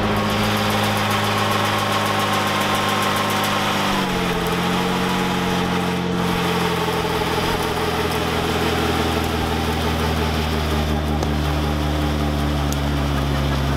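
Amphibious VW Polo's engine held at steady revs through a burnout, its wheels spinning and smoking the tyres. The engine pitch dips slightly about four seconds in, then holds steady.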